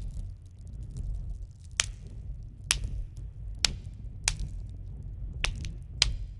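Crackling fire: a steady low rumble with sharp, irregular pops and snaps about once a second.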